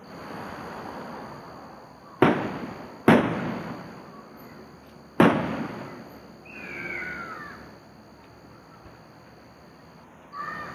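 Three bangs of aerial fireworks shells bursting at a distance, about two seconds in, again a second later, and once more about five seconds in, each trailing off in a rolling echo.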